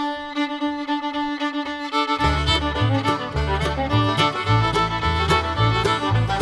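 Instrumental music led by a fiddle, opening on a long held note; a bass line and a steady plucked rhythm come in about two seconds in.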